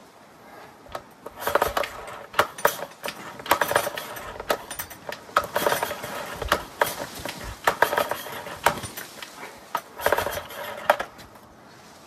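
Irregular metallic clicks, clinks and clanks from a Yamaha 9.9 hp four-stroke outboard's recoil pull starter being handled and pulled by hand, with no engine running.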